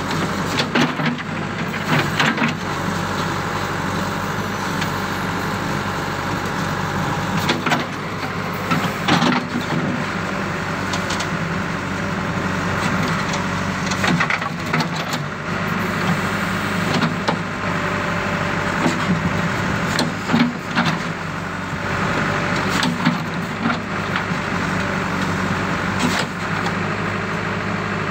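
JCB backhoe loader's diesel engine running steadily, with scattered sharp knocks and scrapes as the bucket digs into the soil of a trench.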